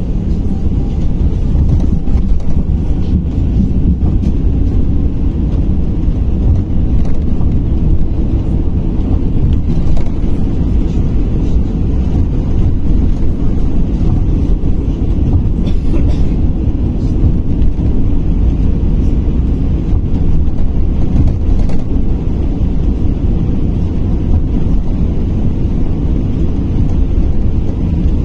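Cabin noise inside a moving KamAZ-6282 electric bus: a steady, loud low rumble of tyres and road as it drives along at speed.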